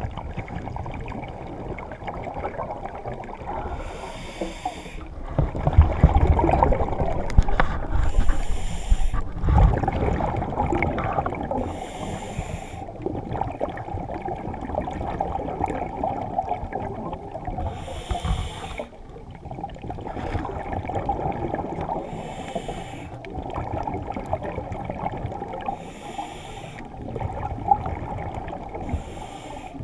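A diver breathing underwater: a short hissing breath about every four seconds, over a steady low water rumble that is heaviest between about six and ten seconds in.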